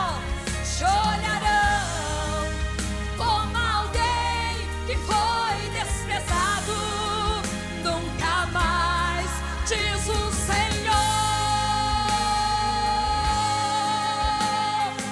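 A woman singing a Portuguese gospel song into a microphone over instrumental accompaniment, her voice wavering with vibrato, then holding one long high note from about eleven seconds in.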